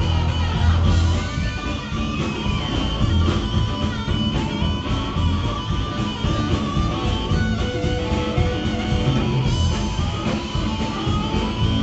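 Blues-rock band playing, guitar to the fore over a bass line and steady drum hits.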